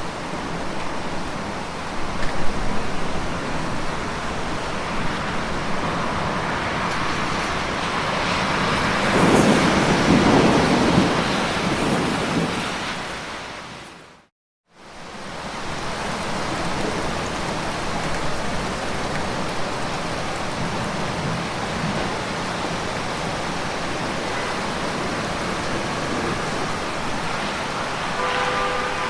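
Steady heavy rain. A low rumble swells up and dies away about a third of the way in. About halfway through, the whole sound fades out to silence for a moment and then fades back in, like a loop or edit point.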